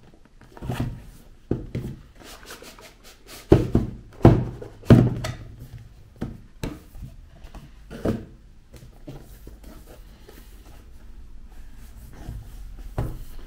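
Cardboard product box being slid out of its sleeve and handled on a tabletop: a string of knocks and thumps with scraping cardboard. The loudest cluster comes about three and a half to five seconds in, with quieter rustling later on.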